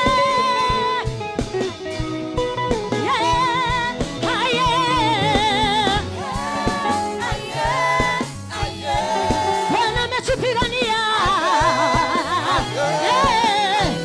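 Live gospel worship song: voices singing a held, wavering melody over a band, with a bass line and a steady drum beat.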